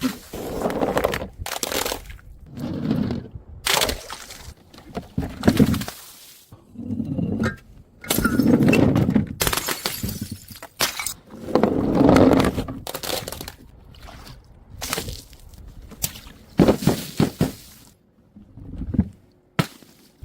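Glass bottles and other things breaking and being crushed: a string of separate crashes, two of them longer and louder, lasting about a second each, midway through.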